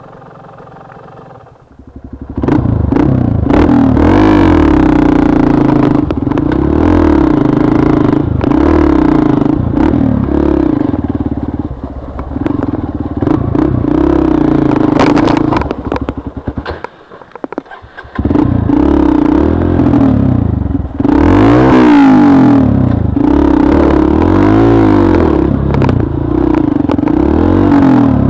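Trail bike engine revving up and down over and over as the bike is ridden along a rough trail. It comes in loud about two seconds in, drops away briefly a little past halfway, then picks up again.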